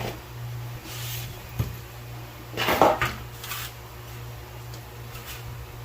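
Petrobond casting sand being worked in a sand-casting flask: a few sharp knocks and a louder scraping clatter about three seconds in, over a steady low hum.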